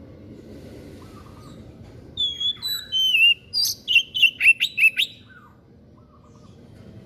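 A white-breasted songbird singing one phrase of about three seconds: a few clear, sliding whistled notes, then a quick run of sharp, steeply falling notes.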